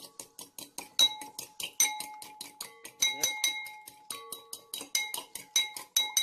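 A fork beating eggs in a bowl: quick, rhythmic clinks of the fork against the bowl, about five or six a second, each with a short ringing tone.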